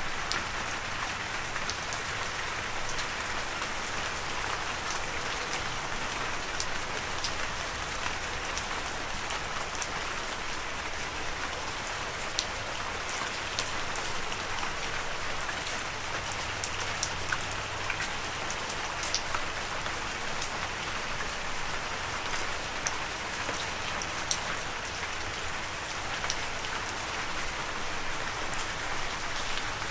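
Steady rain falling: an even hiss with individual drops ticking sharply here and there.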